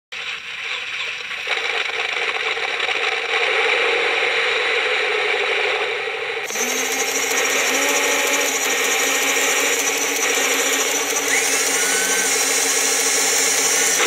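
Heng Long 1:16 radio-controlled Panther tank running: a steady mechanical rattle and whir, which shifts in tone about six and a half seconds in.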